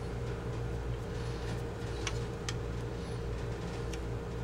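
A few sharp, small metallic clicks of gun parts and a hand tool being handled as the trigger-guard bolt's nut is pinched inside the Saiga 12 receiver, over a steady low hum.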